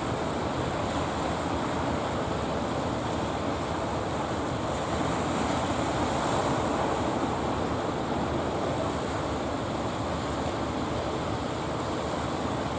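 Steady rushing of sea surf and breaking waves, with wind on the microphone, swelling a little about halfway through.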